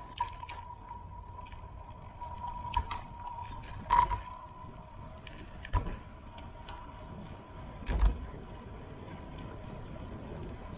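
Riding noise picked up by a camera on a moving bicycle: steady wind and road rumble with a thin, steady high whine, broken by about five sharp knocks from bumps in the road.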